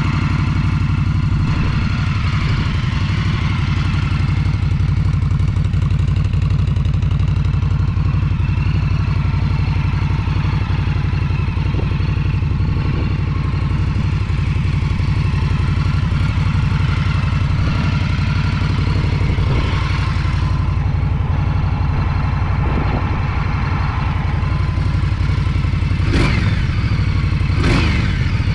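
Indian Scout's 1133 cc V-twin idling steadily, with the throttle blipped twice near the end, the revs rising and falling quickly each time.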